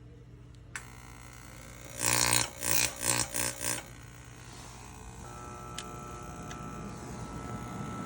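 Oil burner igniter buzzing in about five short loud bursts as it sparks, after a single click; a steady hum then slowly rises.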